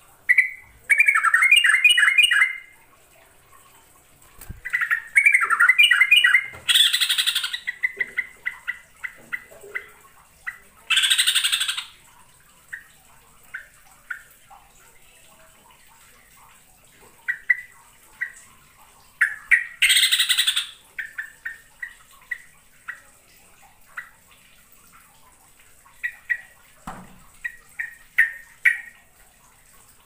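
Yellow-vented bulbul singing: loud bubbly phrases of rapid chattering notes, three short harsh rasping bursts, then a run of short separate whistled notes.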